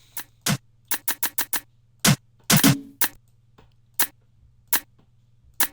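Drum and percussion samples sliced from a loop being played back one hit at a time: a dozen or so short, sharp hits in an uneven pattern, with a quick run of them about a second in and a heavier, deeper hit about two seconds in.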